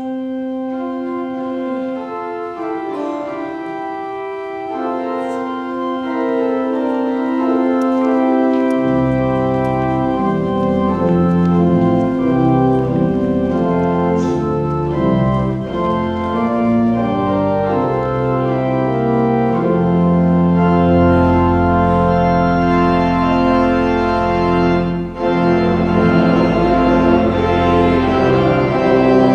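Organ playing sustained chords, starting suddenly. Low pedal bass notes come in about nine seconds in, and the music grows fuller and louder.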